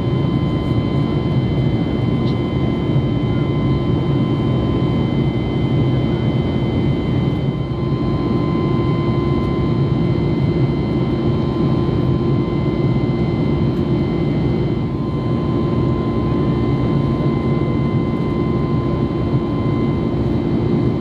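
Steady cabin noise of an Airbus A321neo: an even rush of jet engine and airflow, with a few steady whines held above it.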